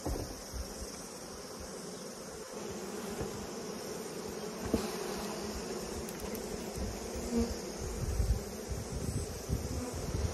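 Swarm of honeybees buzzing steadily around an open hive, a dense continuous hum, with low wind rumble on the microphone.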